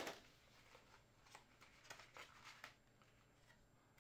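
Cardboard box packaging handled and opened by hand: a short rustle right at the start, then a few faint papery scrapes and soft taps.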